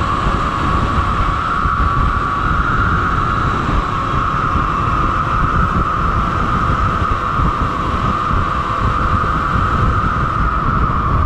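Sur-Ron electric dirt bike ridden at speed: wind buffeting the microphone over the motor's steady high whine, which drifts only slightly in pitch.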